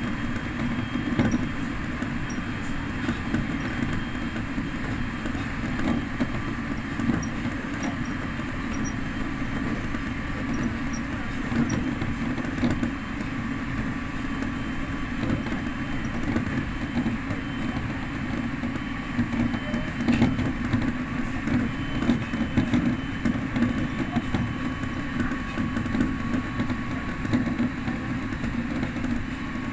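Electric train running steadily along the line, heard from inside the front of the train: a continuous rumble of wheels on rail with a faint steady whine and scattered light clicks.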